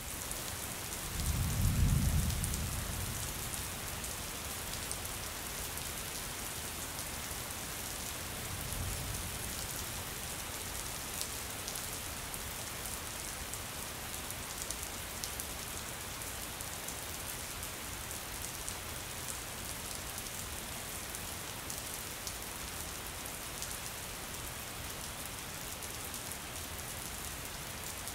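Rain falling steadily, with a loud low rumble of thunder about two seconds in and a fainter one near nine seconds.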